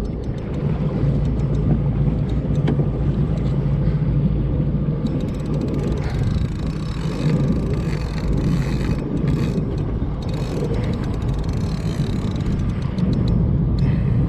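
Steady rumble of wind and sea around a jet ski on open water, with scattered faint clicks.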